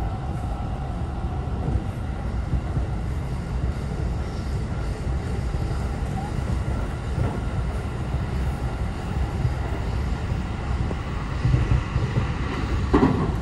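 Running noise of an electric commuter train heard from inside the carriage: a steady low rumble of wheels on rail, with a brief louder sound near the end.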